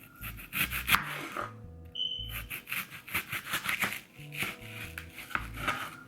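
A knife slicing a red onion into thin strips on a cutting board, in quick runs of sharp chopping clicks, over background music with a stepping bass line.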